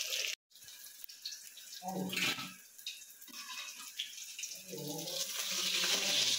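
Water running from a tap, with a steady hiss that cuts out abruptly about half a second in, then comes back softer and builds up again toward the end. Faint voices come through briefly twice.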